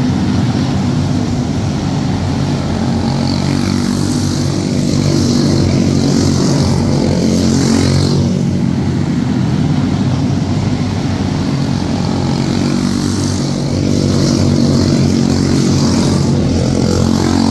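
Several quarter midget race cars with single-cylinder Briggs & Stratton Animal engines racing at speed, their engines running together in a steady buzz. The sound grows louder about halfway through and again near the end as the cars pass closer.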